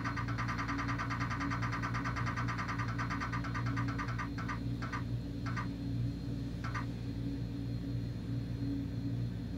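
Spinning prize-wheel app's ticking sound effect played through a phone speaker: rapid ticks as the wheel passes each divider, slowing to a few spaced ticks and stopping about seven seconds in. A steady low hum runs beneath.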